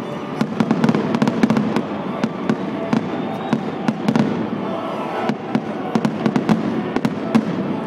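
Aerial fireworks display: shells bursting and crackling in rapid succession, many sharp bangs a second, over a steady din.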